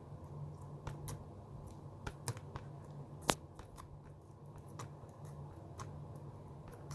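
Homemade glue-and-flour slime being squeezed and stretched in the hands, giving scattered small sticky clicks and pops, with a few sharper snaps about a second, two seconds and three seconds in.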